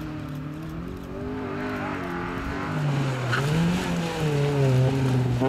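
Small hatchback competition car's engine revving hard, its pitch repeatedly climbing and dropping as the driver accelerates, lifts and shifts, getting louder from about a second in.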